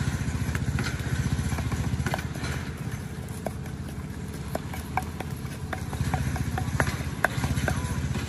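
A small engine running steadily with a fast, even low pulse. Scattered light clicks and taps come from a plastic jar being handled, most of them about halfway through.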